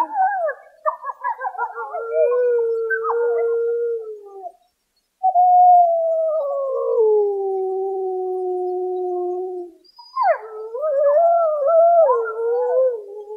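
Wolves howling in chorus: long, falling howls from more than one animal overlap, mixed with short wavering yips. The calls break off for a moment near the middle, then one long howl slides down in pitch before more yipping, wavering calls close it out.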